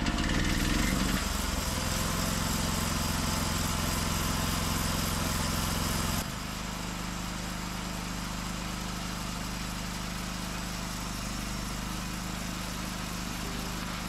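Small engine on a homemade sawmill's power head, running just after being pull-started and loudest in the first second or so. About six seconds in the sound drops abruptly to a quieter, steady running note.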